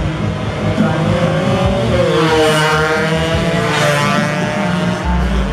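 Two-stroke racing motorcycles running at high revs as they pass in turn, the engine pitch dipping and then climbing again around the middle as a bike goes by.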